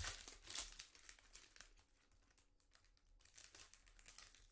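Foil trading-card pack wrapper being torn open and crinkled by hand: a faint run of crackles, densest in the first second and again near the end.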